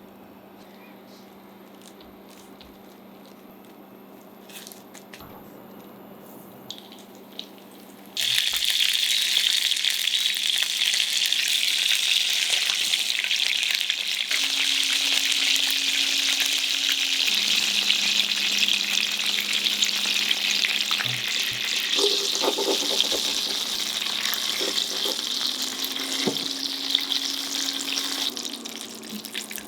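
Starch-coated tofu pieces going into a frying pan of hot oil about eight seconds in, setting off a sudden loud sizzle that keeps up steadily as they shallow-fry. Before that, only a few light taps.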